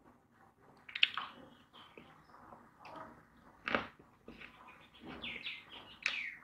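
Eating sounds from a man eating with his hand: chewing and lip smacks, with short irregular clicks as his fingers pick at fried fish and rice on a steel plate. The sharpest clicks come about a second in and again a little past the middle.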